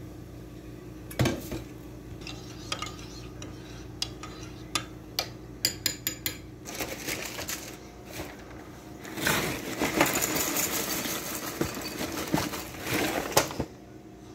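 A few sharp clinks of crockery and cutlery, then dry cereal squares poured rattling into a ceramic bowl for about four seconds, stopping suddenly near the end.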